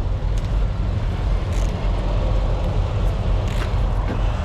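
Steady low rumble of an idling truck engine, with a few faint clicks and two short hisses.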